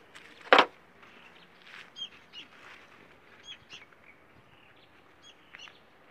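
A single sharp knock about half a second in, then small birds chirping in short, scattered high calls.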